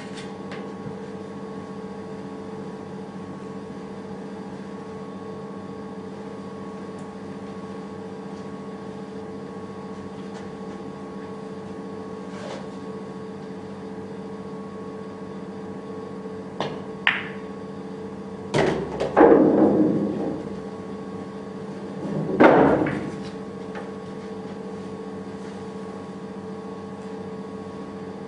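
Billiard balls clicking: a few sharp taps of cue and balls past the middle, then two louder knocks that ring on briefly, over a steady electrical hum.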